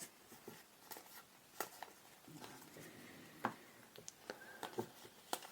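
Faint handling of Star Wars Unlimited trading cards: scattered soft clicks and taps as the cards are flipped through, with a brief soft rustle about two and a half seconds in.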